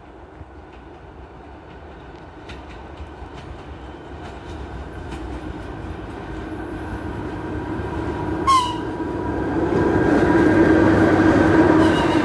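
Passenger train hauled by an electric locomotive approaching and passing close by, its rumble and rolling wheel noise growing steadily louder as the locomotive and coaches go past. A brief sharp sound cuts through about eight and a half seconds in.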